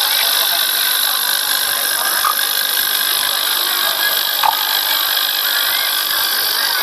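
A loud, steady hissing din, with a few faint, short voice-like calls rising above it now and then.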